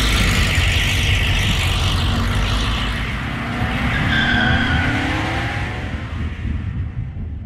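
Car engine revving up under tire-smoking wheelspin, with a short tire squeal about four seconds in; the noise fades out near the end.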